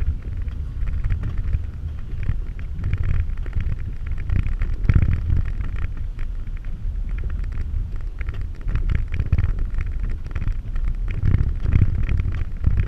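Vehicle driving over a bumpy dirt trail, heard from inside the cab: a steady low rumble of engine and tyres, with frequent small knocks and rattles from the body.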